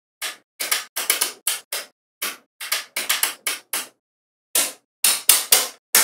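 Small magnetic balls snapping together and clacking into place, an irregular run of about twenty sharp clicks, some close together in quick doubles and triples, with a few heavier knocks near the end.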